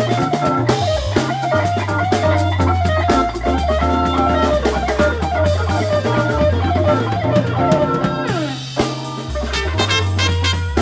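Background music with a steady drum beat and bass line, and a falling slide about eight seconds in.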